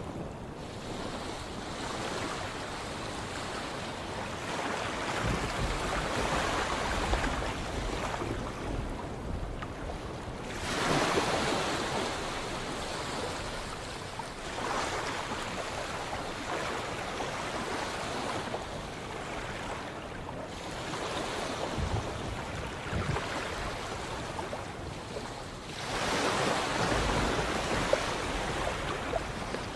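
Sea waves washing and breaking in slow surges every few seconds over a steady hiss of surf. The largest surges come about eleven seconds in and again near the end.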